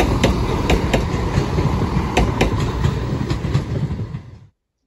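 EMR Regional diesel multiple unit passing, a steady rumble with its wheels clacking sharply over the rail joints. The sound fades as the train draws away, then cuts off abruptly about four and a half seconds in.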